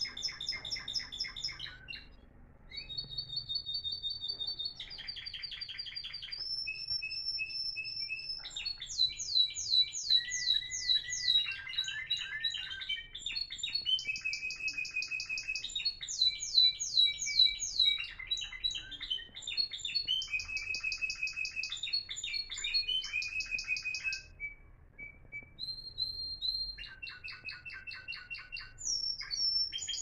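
Timbrado canaries singing: a long chain of rapid trills and rolls, switching between fast repeated notes and held whistled notes. There are short pauses about two seconds in and again near the end.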